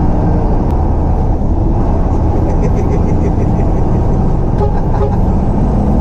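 Bus engine running close by: a loud, steady low rumble with no horn sounded.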